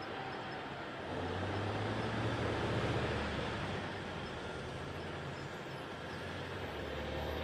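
Large wheel loader's diesel engine running steadily, a low hum over a wash of machine noise that grows slightly louder about a second in.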